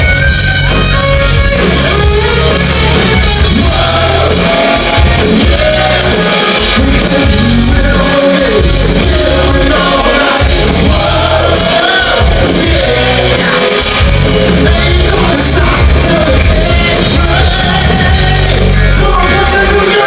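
A live hard rock band playing loud through a hall PA, heard from the crowd: electric guitar, bass guitar and drums, with a male singer's voice.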